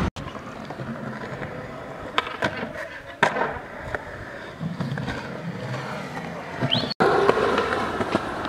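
Skateboard wheels rolling on street pavement, with sharp clacks of the board, the loudest a little after three seconds in. The sound drops out for an instant twice, at cuts in the footage, and runs louder after the second one.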